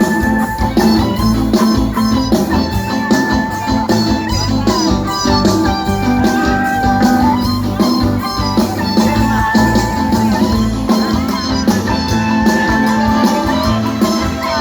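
Loud band music with a steady beat, a bass line and a held, stepping melody line, with no singing: the instrumental opening of a song.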